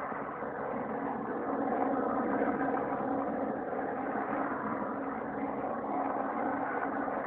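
Helicopter hovering, its rotor and engine sound steady and unbroken.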